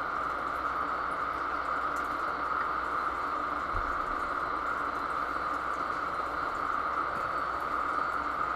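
Steady machinery noise aboard a ship, an even hiss-like drone with its weight in the middle pitches, unchanging throughout, with a brief low bump about four seconds in.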